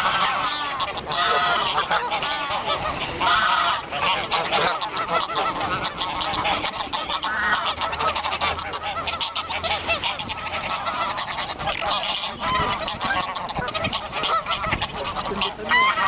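A flock of Canada geese and greylag geese on the water honking continuously, many short calls overlapping with no break.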